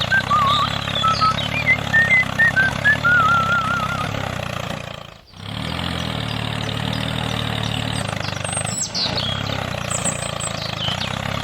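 Steady low engine hum, like a small tractor idling, with birds chirping and whistling over it; it drops out briefly about five seconds in.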